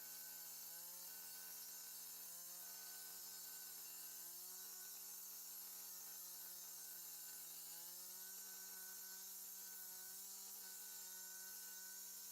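Power saw cutting expansion joints into hardened concrete, running faintly and steadily, its pitch shifting slightly a few times.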